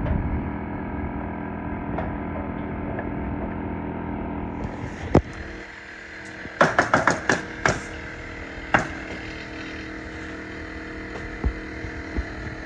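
Steady machine hum, then sharp nailing strikes on a roof deck: a single shot, a quick run of about six in a little over a second, and a few more single shots spaced apart.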